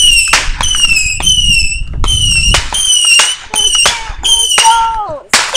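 Whistling fireworks going off in quick succession: about eight short, high whistles, each falling slightly in pitch, mixed with sharp cracks.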